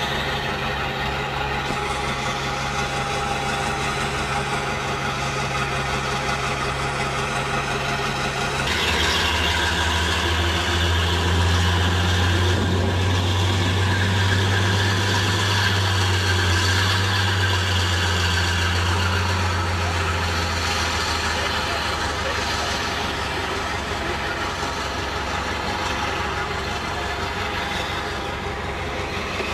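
Class 52 'Western' diesel-hydraulic locomotive D1015 running on its twin Maybach V12 diesel engines with a steady drone. About nine seconds in the note changes abruptly to a louder, deeper drone, which holds for about twelve seconds and then eases back.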